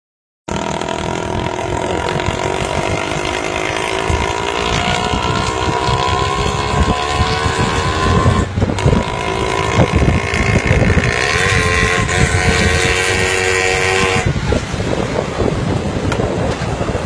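Three-wheeler's engine running and accelerating, its pitch climbing steadily for about eight seconds, breaking off briefly, then climbing again until it falls away about fourteen seconds in, with a rough rumble underneath.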